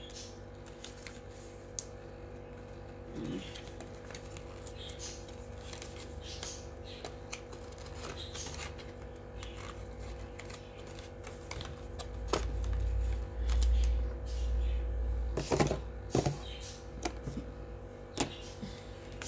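Small plastic camera-mount parts and a thumb screw being handled on a table: scattered irregular clicks and taps, with a few seconds of dull low bumps a little past the middle.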